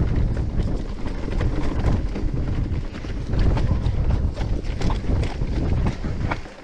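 Electric mountain bike riding down a rough forest trail. Wind buffets the camera microphone with a heavy rumble, and the bike rattles and clatters over roots and rocks in a dense run of irregular knocks.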